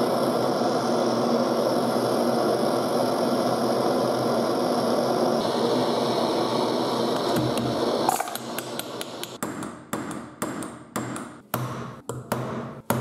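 Brass pressurised blowlamp burning with a steady hiss while its flame heats the gear on a Ford Model T generator shaft. About eight seconds in the hiss stops and a hammer begins striking a punch held on the generator's casing, about two to three sharp taps a second.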